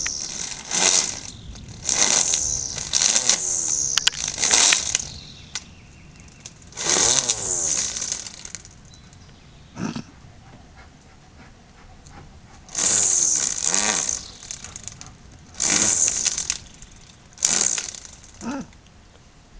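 Gas string trimmer (weed eater) revved in short bursts, about eight times: the throttle trigger is squeezed and let go each time, so the engine whines up in pitch and drops back to idle instead of being held at speed.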